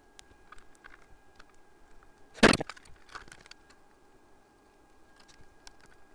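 Small clicks and taps of tools and electronic components being handled on a workbench, with one loud clack about two and a half seconds in.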